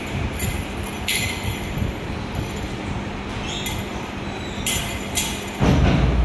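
Short, repeated jingling bursts from a cat's feather wand toy being flicked about, over a steady low rumble; a louder rumble comes in near the end.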